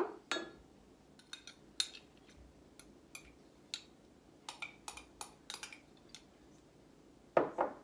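A spoon clinking and scraping against a glass measuring cup and container as thick aloe vera gel is scooped out, in scattered light taps. There is a louder knock near the end.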